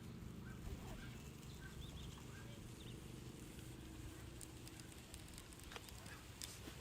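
Faint bird chirping, short high notes repeated about twice a second and thinning out after a couple of seconds, over a low steady rumble.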